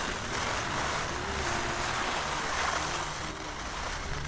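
Skis sliding and scraping steadily over packed snow on a fast downhill run, mixed with wind rushing over the microphone.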